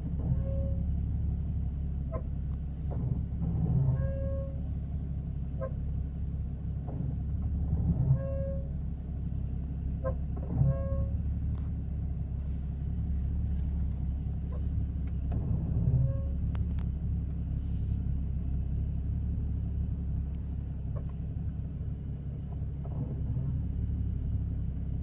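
Porsche 981 Cayman S brakes making short, pitched honking squeaks that recur every couple of seconds, over the steady low rumble of the car rolling.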